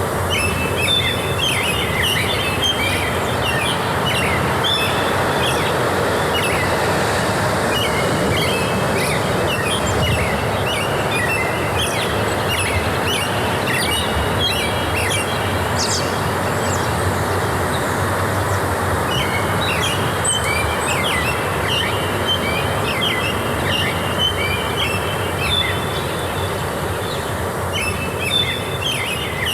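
Small birds chirping in quick repeated phrases that come in spells, over a steady, even rushing noise.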